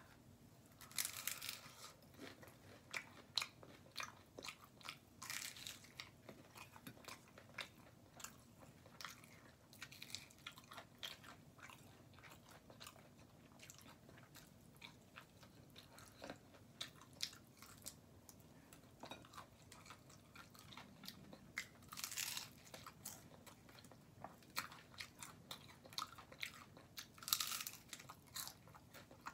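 A person eating tacos: wet chewing and small mouth clicks, with a few louder crunchy bites.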